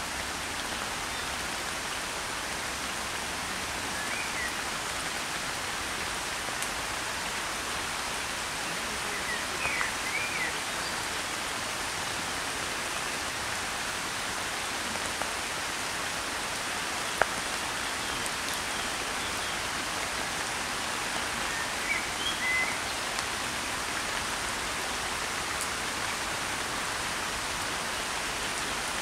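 Steady rain falling on a pond's surface, an even pattering hiss. A few brief high chirps stand out about ten seconds in and again past twenty seconds, and there is a single sharp click near the middle.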